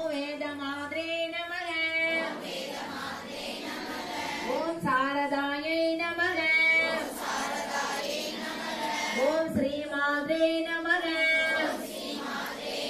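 High female voice singing a devotional song in three sung phrases of about two seconds, with quieter hazy stretches between them.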